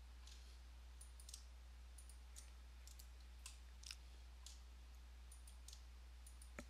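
Faint, irregular computer mouse clicks and key presses, about a dozen, over a steady low hum.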